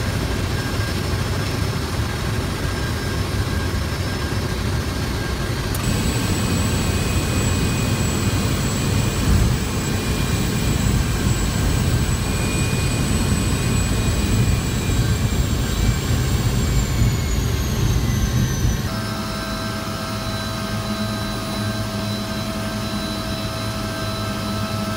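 Seaplane's propeller engine running steadily, with a high whine over the low drone. Near the end the whine falls in pitch as the engine slows, and the sound shifts abruptly twice.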